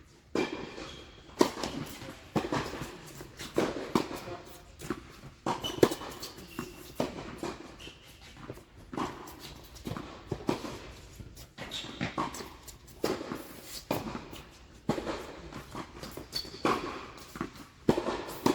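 Tennis rally: the ball being struck by rackets and bouncing on the court, sharp irregular hits about once a second, with a few short squeaks between them.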